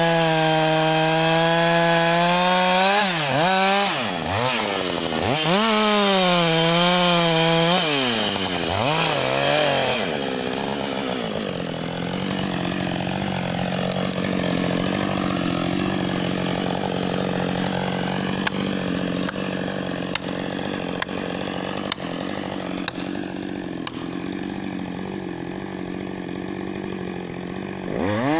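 Husqvarna 560 XP two-stroke chainsaw at high revs, then dropping and rising in pitch several times. For the second half it settles to a lower, steady idle, with scattered sharp clicks and snaps over it. Near the end it revs back up.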